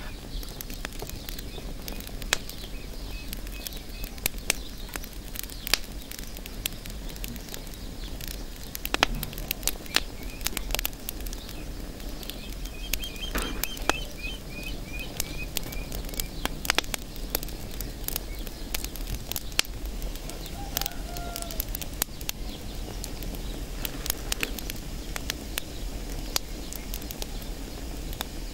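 Dry straw and stalks burning in an oven firebox, crackling with frequent sharp, irregular snaps and pops. Birds chirp faintly a few times in the background.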